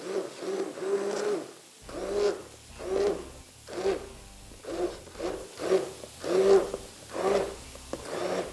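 Electric hand blender puréeing hot tomato pizza sauce in a pot, its whir rising and falling in pulses a little more than once a second as it churns through the whole tomatoes.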